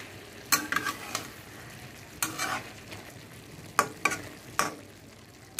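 Metal spatula stirring ridge gourd and potato pieces in a kadai, scraping against the pan in about five sharp strokes with pauses between them. The vegetables sizzle quietly in the oil between strokes.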